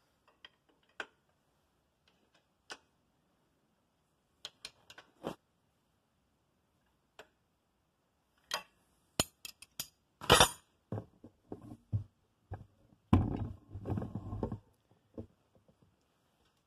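Hand tools and metal parts of a tractor's brake linkage clinking and knocking during brake adjustment. Scattered light clicks come first, then a cluster of sharp metal knocks about nine to ten seconds in, and a longer stretch of rattling and knocking near the end.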